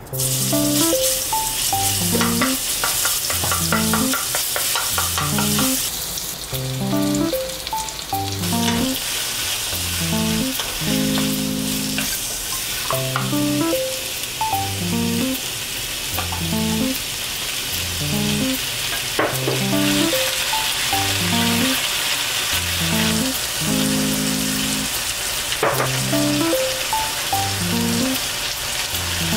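Oil sizzling in a frying pan as minced garlic, then sliced zucchini, onion and carrot stir-fry, with a spatula stirring through them. Bouncy background music with a plucked bass plays under it.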